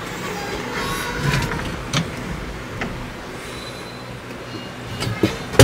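Scattered mechanical clicks and knocks from the controls of an old vehicle being worked by hand, ending in a loud sharp clack.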